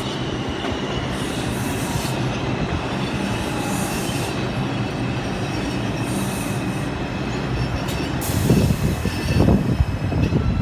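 IRT R142 subway train running through the station, a steady rumble of steel wheels on rail with a faint high wheel squeal. Uneven low thumping comes in over the last two seconds.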